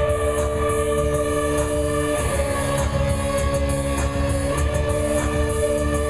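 Live industrial electronica: sustained synthesizer chords shifting about every two seconds over a steady beat, with electric guitar.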